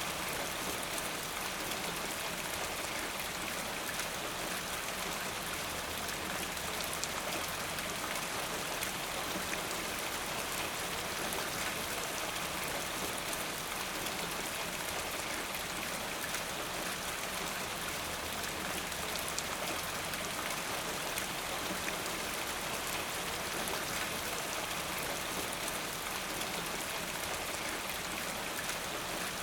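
Steady rain falling, a continuous hiss with many fine drop patters.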